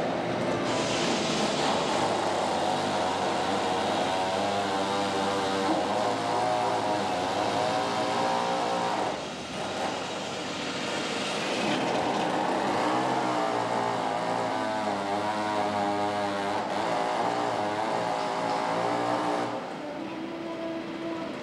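Sawmill machinery running steadily: the chain log conveyor feeding a log into the saw, with a pitched whine that wavers up and down as the saw works. The noise dips briefly about nine seconds in and again near the end.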